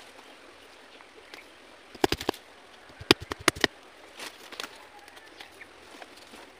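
Sharp wooden clicks and cracks of sticks being worked by hand for a stick-fence trap: a quick cluster of about four about two seconds in, then a faster string of knocks a second later, with a few fainter ones after.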